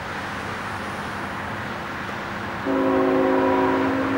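Approaching freight train's rumble, then about two and a half seconds in the lead locomotive's horn starts: a sustained chord of several notes, louder than the rumble. It sounds as a warning with people standing on the track ahead.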